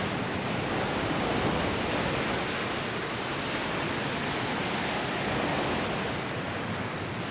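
Storm wind and heavy surf of a rough sea: a steady rushing noise that eases slightly near the end.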